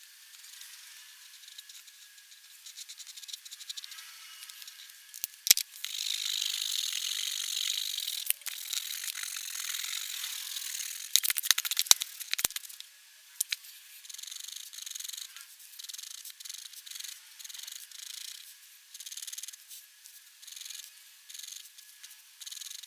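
Black pigment pen nib scratching across paper: a dense stretch of continuous hatching from about six seconds in, then short strokes repeating unevenly. A few sharp clicks come in between.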